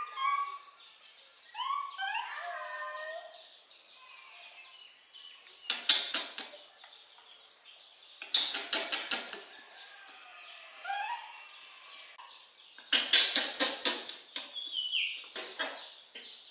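High, squeaky little cries from young animals, each sliding up and down in pitch, in a cluster at the start and again about ten seconds in. Between them come several quick runs of sharp clicks, the loudest sounds here.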